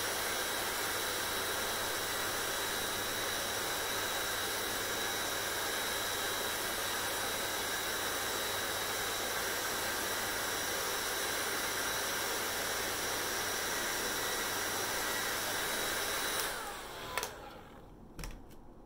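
Hair dryer blowing steadily, its motor giving a constant hum with a few steady whining tones. Near the end it is switched off: the airflow dies away and the motor winds down with a falling pitch, followed by a sharp click and two softer knocks.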